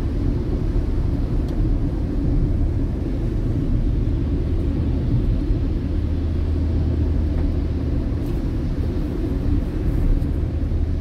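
Steady low rumble of a car in motion heard from inside the cabin, its tyres running on a rain-soaked road; a deeper drone grows stronger about halfway through.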